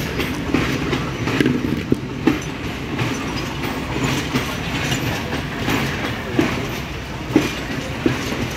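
Passenger coaches of a departing train rolling past on the track, a steady rumble with a few sharp clacks at uneven intervals as the wheels cross rail joints.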